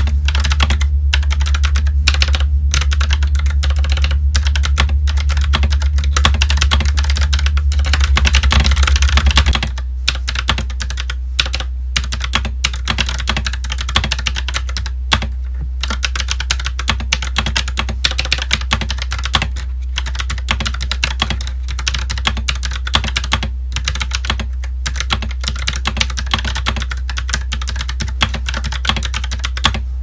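Continuous fast typing on an Akko World Tour Tokyo mechanical keyboard fitted with Akko Orange switches: a dense, irregular run of key clacks. A steady low hum sits underneath and drops in level about ten seconds in.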